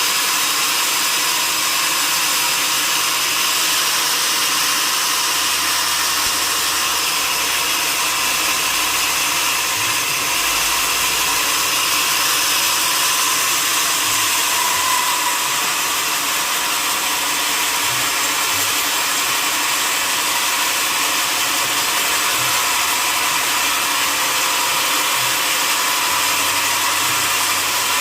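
Sawmill saw running steadily, making an even, unbroken noise with no pauses or changes.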